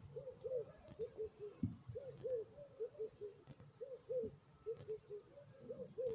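Dove cooing: soft rising-and-falling coos repeated steadily in short runs of two to four notes. A couple of low thuds come in between.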